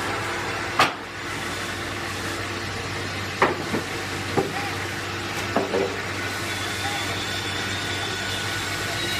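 Sawmill machinery running with a steady hum and noise, with a sharp knock about a second in and several shorter knocks and clacks a few seconds later.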